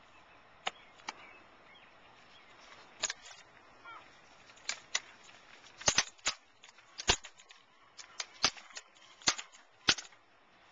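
Sharp, irregular clacks of a rifle drill team handling their rifles: gloved hands slapping the rifles and rifle butts striking concrete. There are about fifteen in all, sparse at first and coming thicker and louder in the second half.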